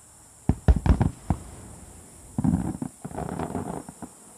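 Aerial firework shells bursting: a quick run of about five sharp booms within a second, followed by a longer, rougher stretch of rumbling noise about two and a half seconds in.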